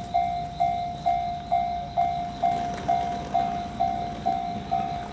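Japanese electronic level-crossing warning bell ringing in an even, steady rhythm of about two strikes a second, signalling an approaching train.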